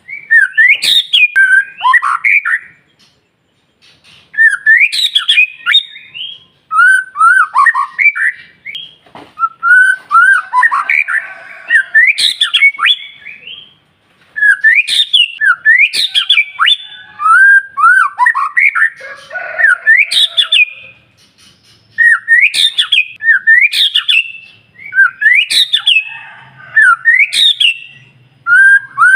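White-rumped shama (murai batu) singing: loud phrases of rapid, sweeping whistled notes, one after another with short pauses between them.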